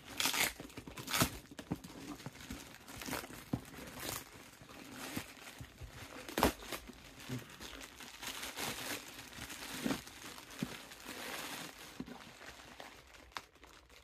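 Plastic mailing bag sealed with fragile tape crinkling and tearing as it is pulled open by hand. The rustle is irregular, with a few sharper rips along the way.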